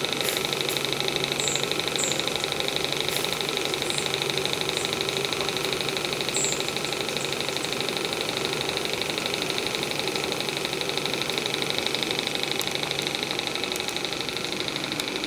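Hand-built Graham TVR1A model steam engine running steadily on steam at about 25 psi on its first steam run, its exhaust giving a rapid, even chuffing over a steady hiss.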